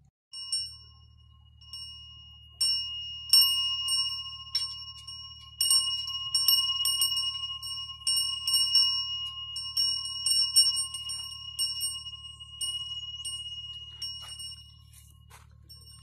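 Metal wind chime rung over and over, many quick strikes of one clear ringing note with bright overtones, each left to ring on; the strikes thin out and the ringing dies away near the end.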